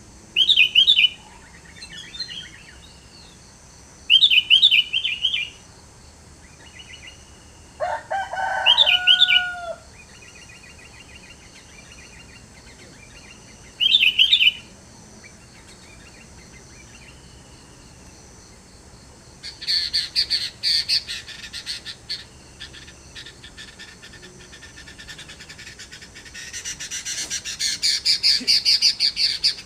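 Sooty-headed bulbul (kutilang) singing short, quick high phrases every few seconds, with one lower call about eight seconds in. Later come two long runs of rapid chattering calls, the louder near the end.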